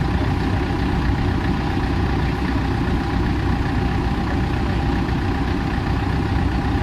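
An engine idling steadily: an even low rumble that keeps up without change.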